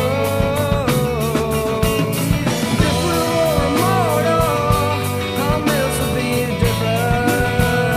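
Rock band music: sustained guitar lines with bending, sliding notes over bass and a steady drum beat.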